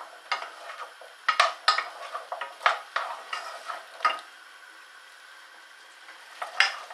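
Diced carrots and potatoes stirred with a spoon in a saucepan of hot oil: a run of sharp knocks and scrapes of the spoon against the pan, then a steady sizzle of the vegetables frying, and one more knock near the end.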